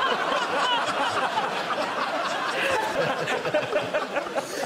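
Studio audience laughing: many voices at once.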